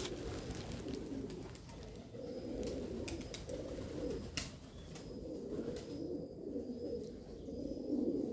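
Domestic pigeons cooing, several low rolling coos overlapping one another, with a few faint clicks.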